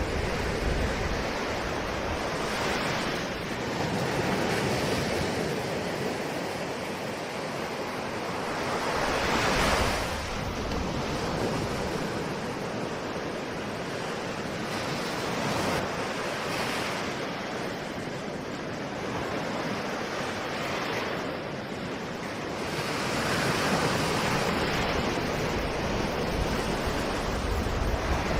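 Ocean waves breaking and washing on a shore, a steady rush of surf that swells and recedes every few seconds, with one louder wave about ten seconds in.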